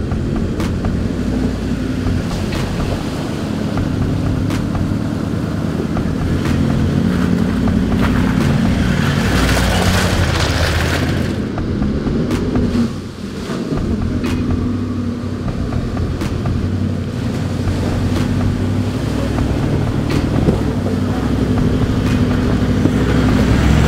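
Toyota Land Cruiser 4WD engines running at low speed as the vehicles crawl through a flooded mud rut, with a rush of water splashing about ten seconds in.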